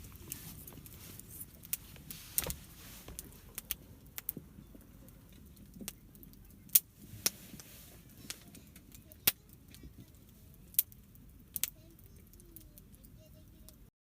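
Wood campfire crackling, with sharp irregular pops and snaps over a low steady background; it cuts off suddenly near the end.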